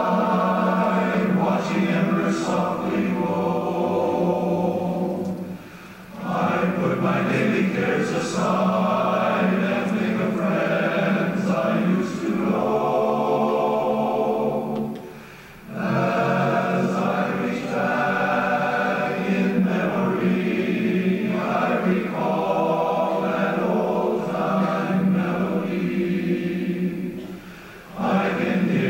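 Large men's barbershop chorus singing a cappella in close four-part harmony. The singing breaks off briefly between phrases, about 6, 15 and 28 seconds in.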